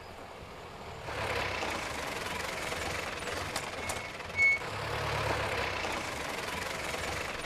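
A motor vehicle's engine running steadily, louder from about a second in, with a short high beep about four seconds in.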